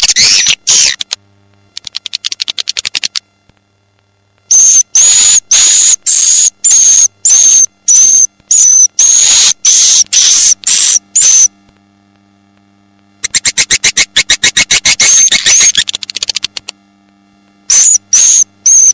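Recorded white-nest swiftlet calls played as a swiftlet-farming 'tarik' lure track, the kind used to draw swiftlets into nesting houses in the evening. Runs of loud, sharp chirps, each with a high whistled note, alternate with stretches of fast, dry clicking rattles, with short silent gaps between.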